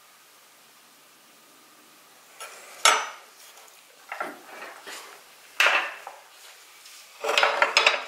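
Kitchen utensils and crockery clinking: a metal spoon and tongs knocking against a small bowl and a saucepan, and plates being moved on a marble board. After a quiet start there is a sharp clink about three seconds in, another near six seconds, and a quick clatter of several knocks near the end.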